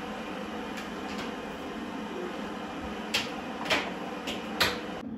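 Steady rushing background noise in a kitchen, with four short, sharp knocks in the second half from kitchen work.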